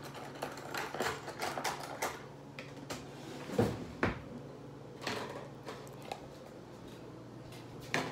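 Handling noise from a handheld phone: scattered clicks, knocks and rubbing, with two louder thumps about three and a half and four seconds in, over a steady low hum.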